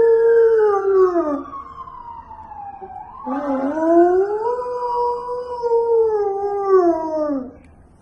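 Samoyed howling twice: a first long howl that slides down in pitch, then a second that rises, holds and falls away, ending about half a second before the end.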